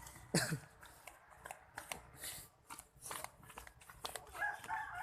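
A rooster crowing about four seconds in, a drawn-out pitched call that runs past the end. Scattered clicks and rustles come before it, and there is a short falling sweep near the start.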